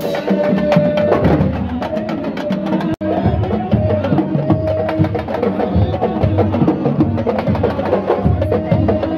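Traditional Senegalese drumming: fast, dense hand-drum strokes with a voice singing over them.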